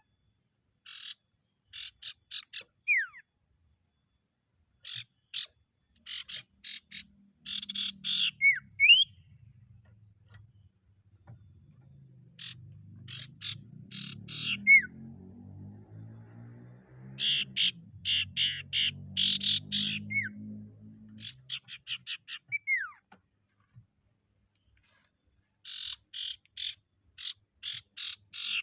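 Common iora singing: bursts of rapid, short, high chattering notes, each burst ending in a single falling whistled slur, repeated about half a dozen times with pauses between. A low rumbling hum runs underneath for much of the middle.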